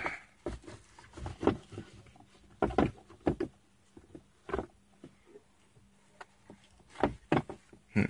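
Scattered clicks and knocks as hands work at a car's gear shift lever and console trim, taking the shifter apart by hand. The strikes come in small clusters, busiest around three seconds in and again near the end.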